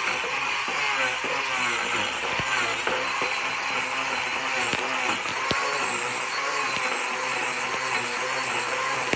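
Angle grinder fitted with a Manpa carving cutter, running continuously and cutting into a bishop wood root to hollow out a bowl. Its pitch wavers as the cutter bites, with scattered clicks.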